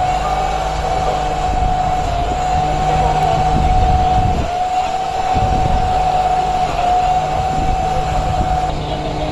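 Steady mechanical drone: a constant, slightly wavering high whine over a low rumble. The rumble briefly drops away about halfway through.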